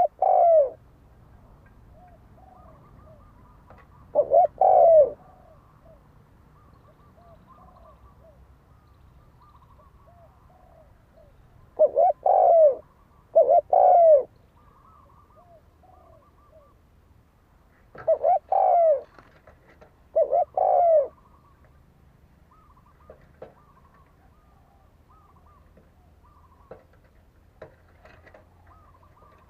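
Spotted dove cooing: six loud, low coo phrases a few seconds apart, some in close pairs, with no loud calls in the last third. Fainter, higher bird calls come in between.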